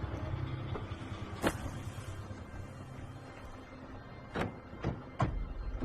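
A steady low rumble with sharp knocks: one about a second and a half in, then three close together near the end.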